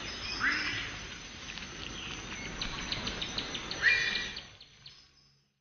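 Tropical forest ambience: a steady insect hiss dotted with short chirps, and two calls that sweep up in pitch, one just after the start and a louder one about four seconds in. It fades out near the end.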